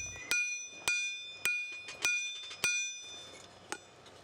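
Hammer blows on hot knife steel over an anvil while the blade is drawn out: five ringing strikes at a little under two a second, each leaving a short metallic ring. The hammering stops about three seconds in.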